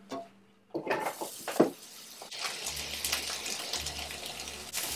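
Chopped onions tipped into a frying pan of hot oil: a few sharp knocks and clatters, then a steady sizzle from about two seconds in.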